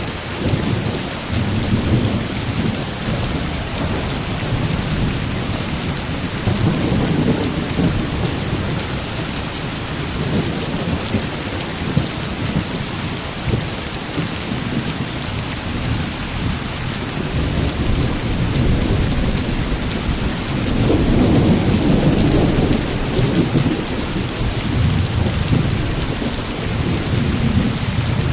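Heavy rain falling steadily with rolling thunder rumbling underneath, swelling loudest about a third of the way in and again about three quarters through.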